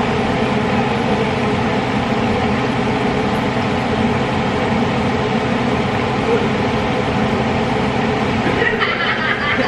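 A loud, steady drone that holds level without rhythm, with voices coming in over it near the end.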